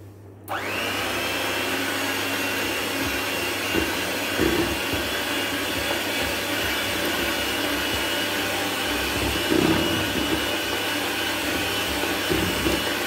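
Electric hand mixer switched on about half a second in, running steadily with a high motor whine as its beaters cream room-temperature butter in a bowl.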